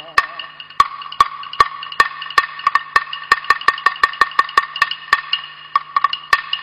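Chinese opera percussion: a series of sharp, dry, woodblock-like strikes, spaced out at first, quickening to about three or four a second, then thinning out near the end, over a faint low steady hum.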